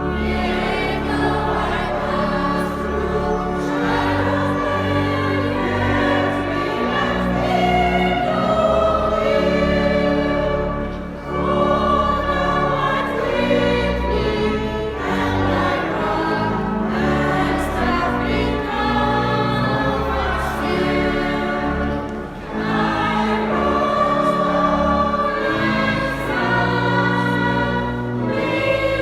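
Choir singing sacred music in sustained chords, with short breaks between phrases about 11 and 22 seconds in.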